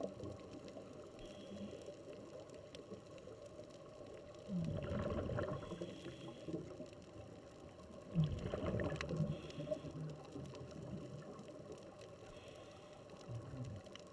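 Underwater sound of scuba divers breathing through regulators: murky gurgling and bubbling from their exhalations, with louder bursts about four and eight seconds in.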